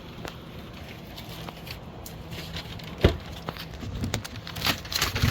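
Crinkling and rustling of packing material being handled, with a sharp knock about three seconds in and a flurry of knocks and rustles near the end.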